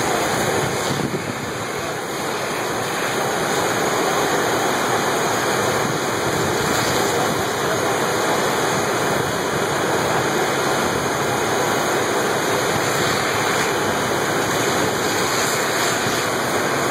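Steady, loud rushing of fire hose water streams being put onto a burning house.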